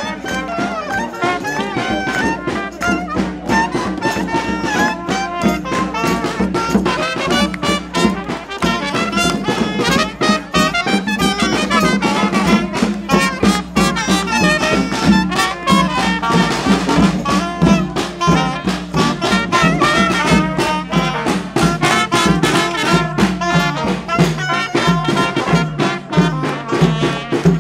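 Small street brass band playing lively, jazzy music: sousaphone bass, trumpets and clarinet over a steady snare-drum beat.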